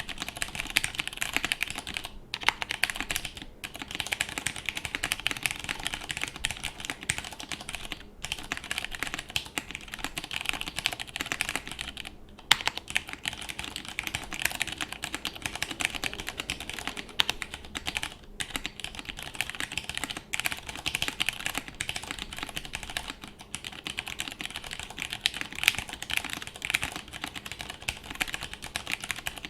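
Continuous fast typing on a plateless J80S mechanical keyboard with lubed vintage Cherry MX Brown switches and doubleshot keycaps: dense, rapid key clacks with a few brief pauses.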